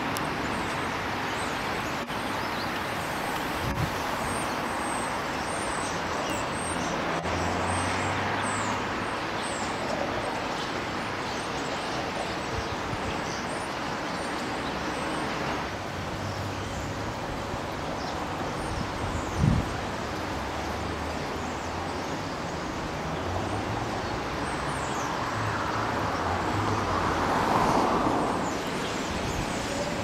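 Steady street traffic noise with car and truck engines running. There is a dull thump a little past halfway, and one vehicle swells louder as it passes near the end.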